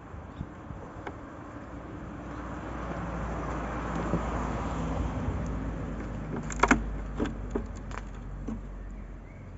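A vehicle passing by, its noise swelling and then fading over several seconds. About two-thirds of the way in come a few sharp clicks and knocks, the loudest sounds here, as a metal hive tool is handled against the wooden hive frames.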